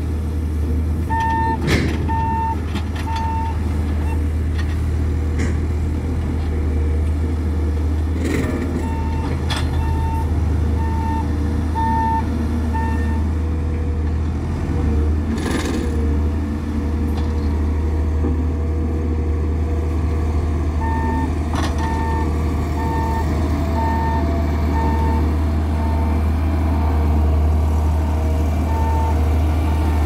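Diesel engines of a Hidromek backhoe loader and a Dynapac road roller running with a steady heavy drone. A reversing alarm beeps in three runs of evenly spaced beeps, a little under two a second. A few short clanks are heard.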